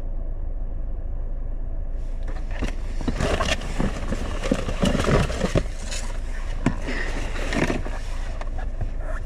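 Low steady rumble of the idling car. About two seconds in, outside noise suddenly comes in, followed by irregular crunching and rustling sounds.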